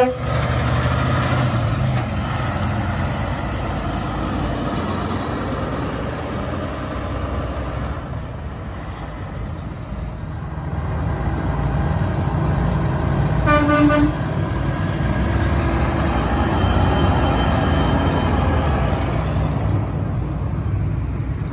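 Heavy diesel semi-trucks running past at close range, with the tail of an air-horn blast from a Kenworth W990's Hadley air horns right at the start. About two-thirds of the way through, another truck gives a short air-horn blast.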